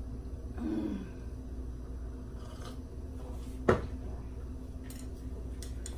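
A ceramic coffee mug set down on a wooden cutting board with one sharp knock, over a steady low room hum.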